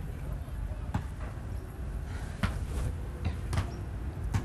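Basketball bouncing on a court: four sharp thuds about a second apart, over a steady low rumble.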